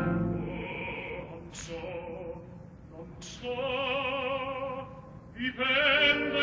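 Background music: an operatic voice singing long held notes with vibrato, phrase after phrase, with brief breaths between them.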